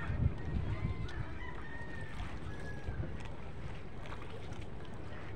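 A rooster crowing: one long, slightly falling call starting about a second in, over a steady low rumble.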